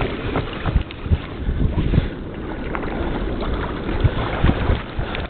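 Wind buffeting the microphone over water sloshing around a kayak, with irregular low knocks and thumps against the hull.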